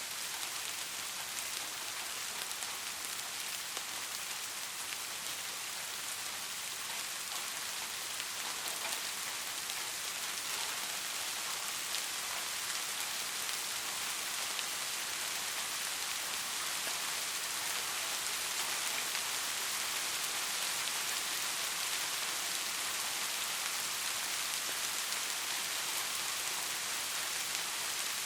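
Steady rain falling, an even hiss with fine patter of drops hitting a surface.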